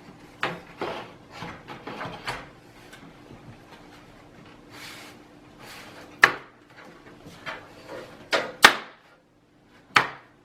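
Front panel of a Cougar Panzer PC case being handled and snapped back into place: scraping and light knocking, then four sharp clicks and knocks in the second half as it seats.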